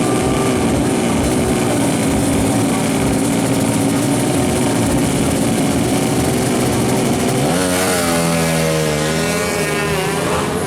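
Drag-racing motorcycle engines running loud and rough. About two-thirds of the way in, one clear engine note comes forward, its pitch dipping and then climbing as it revs.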